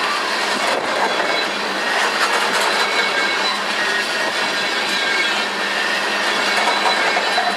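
Freight train cars rolling past close by: a steady, loud rush and clatter of steel wheels on the rails.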